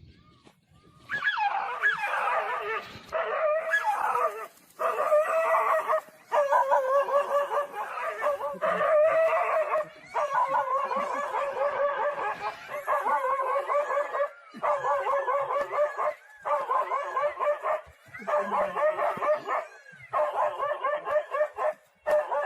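A dog making long, wavering, high calls one after another, each lasting a second or two with short breaks between them.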